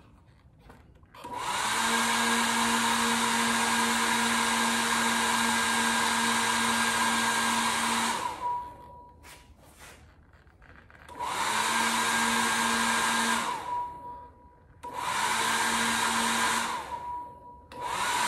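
Super Beast load tester in the meter socket switched on and off repeatedly, running with a steady whir and hum while it draws a heavy test load. It runs about seven seconds, then twice more for a couple of seconds each, and starts again near the end, with a tone rising each time it starts.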